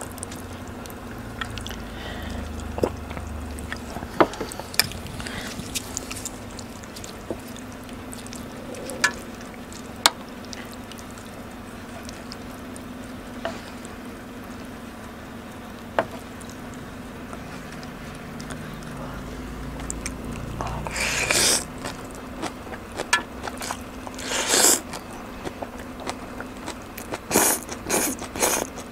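Wooden spoon and fork clicking and scraping through a tray of meatballs, noodles and chili sauce as the food is mixed, with a faint steady hum underneath. Near the end, several loud slurps as noodles are sucked into the mouth.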